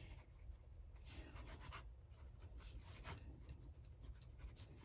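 Faint scratching of a Pelikan Twist fountain pen's steel medium nib writing on notebook paper, in a run of short strokes.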